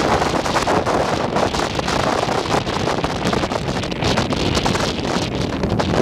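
Strong typhoon wind buffeting the microphone: a steady, heavy rush of noise with rapid, rough flutter and no let-up.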